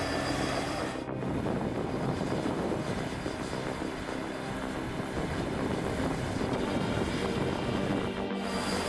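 A large engine running steadily, with abrupt shifts about a second in and near the end where the footage changes.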